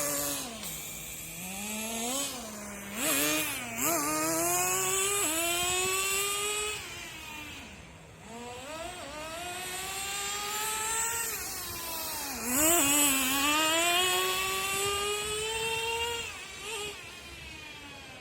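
Nitro RC car's small glow-fuel engine running and revving: the pitch climbs steadily for several seconds at a time, then falls away as the throttle closes, with a few short sharp blips in between.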